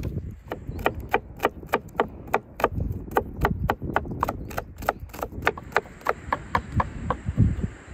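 Kitchen knife chopping garlic cloves on a wooden cutting board: a steady run of sharp knocks, about four a second, starting about a second in.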